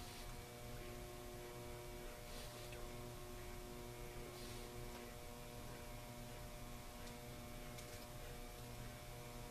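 Steady low electrical mains hum made of several constant tones over a faint hiss, with a couple of faint soft brief noises about two and four and a half seconds in.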